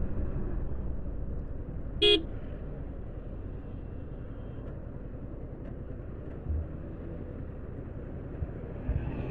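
A vehicle horn toots once, briefly, about two seconds in. Under it runs the low steady rumble of a Yamaha R15 V4's 155 cc single-cylinder engine and road noise as the motorcycle rolls slowly through traffic.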